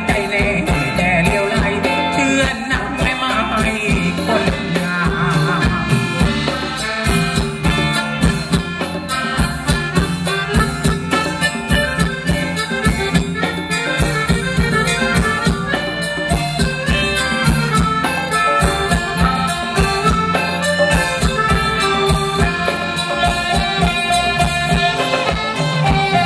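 Live Thai ramwong dance band playing: a drum kit keeps a steady beat under electric guitars and a lead melody.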